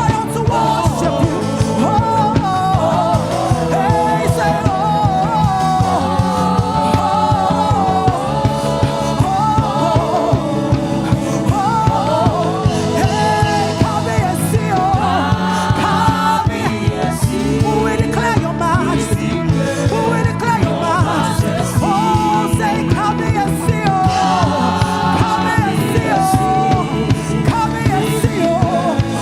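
Live gospel praise-and-worship music: a band playing a steady beat under singing.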